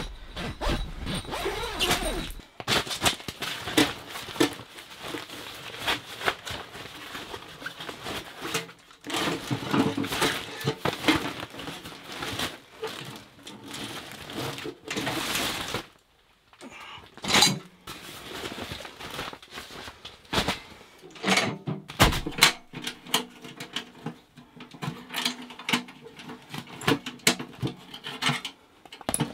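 Handling noise from unpacking a small steel tent wood stove: a nylon carry bag rustling, with irregular metal clinks and knocks as the stove is lifted out and its folded legs and wire-ringed pins are worked loose. A few of the knocks stand out, about halfway through and a few seconds later.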